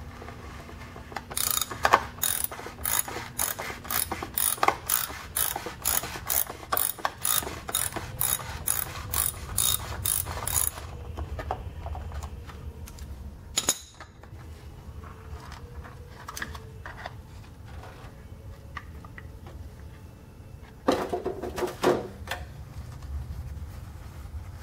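Hand ratchet clicking at about two clicks a second as it turns an oil filter socket to loosen a motorcycle's engine oil filter; the clicking stops about eleven seconds in. Scattered light knocks follow, with a short clatter near the end.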